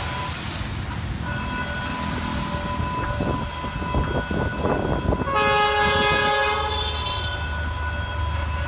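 A D19E diesel-electric locomotive's horn sounds once, loud and held for about a second and a half, midway through, over the steady ringing of a level-crossing warning signal and a low rumble.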